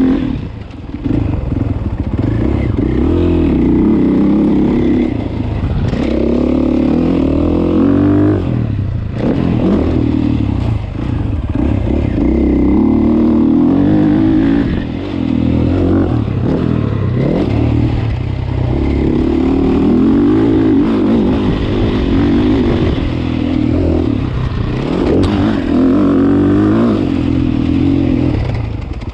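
Motocross bike engine heard from on board, revving hard and falling off again and again as the rider accelerates, shifts and rolls off the throttle, with several brief drops. Rattles from the bike over the rough track run underneath.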